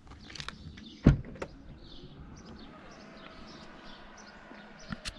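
Jaguar I-Pace tailgate opening: a sharp latch thump about a second in, then a faint steady motor whine as the tailgate rises, ending with a click near the end.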